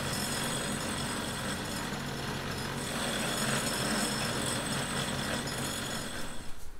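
Belt-driven metal lathe running steadily, its cutting tool turning down a metal tube spacer.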